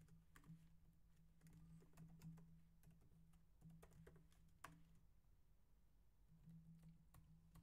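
Faint computer keyboard typing: scattered, irregular key clicks, one a little sharper about four and a half seconds in, over a faint low hum.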